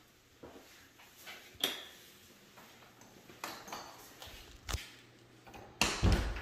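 Scattered light clicks and knocks of footsteps and a hand-held phone being moved. There is one sharp click with a short ring about one and a half seconds in, and a louder rubbing thump near the end.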